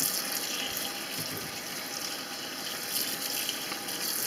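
Kitchen faucet running steadily onto dyed wool in a plastic colander in a stainless steel sink, rinsing out excess pokeberry dye.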